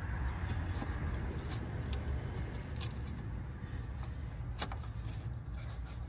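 Metal band-type filter wrench clicking and scraping against a skidsteer's hydraulic filter canister as it is set and pulled on, a few sharp clicks over a steady low hum; the filter is stuck tight.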